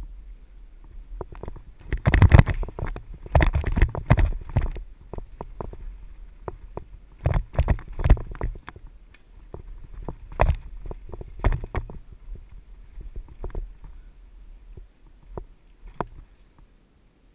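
Mountain bike rattling and knocking as it rides down a rough, rocky dirt trail, with a low rumble underneath. Sharp jolts come in irregular clusters, the heaviest about two to five seconds in and again around eight seconds.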